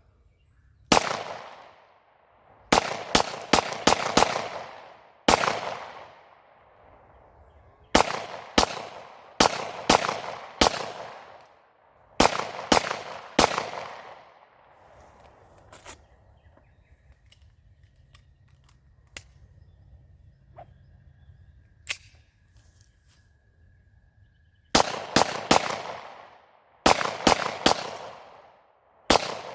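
Beretta 92FS 9mm pistol firing in strings of quick shots, each shot trailing off in a long echo. There are about two dozen shots, with a pause of several seconds in the middle before a fast string near the end.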